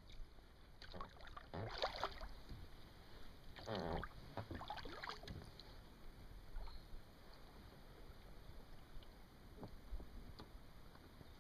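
Paddle strokes in the water beside an inflatable boat: a few splashing dips in the first half, then quieter lapping with a couple of light knocks near the end.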